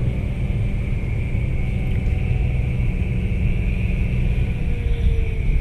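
Car engine running and tyres rumbling on the road, heard from inside the cabin while driving, with a steady high-pitched drone over the low rumble.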